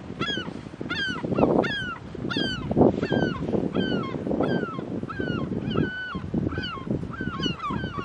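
Herring gulls calling over and over in a fight, short calls about two a second, each bending down in pitch. A rough rushing noise swells and fades underneath.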